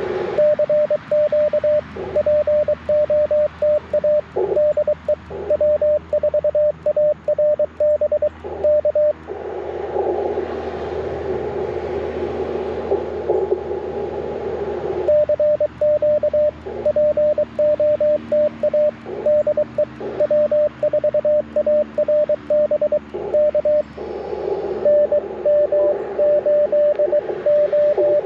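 Morse code (CW) on an Icom IC-705 transceiver: a single steady tone keyed on and off in dots and dashes. About nine seconds in, and again near the end, the keying pauses into the receiver's narrow-filtered band hiss, and a weaker keyed tone sits in the hiss near the end.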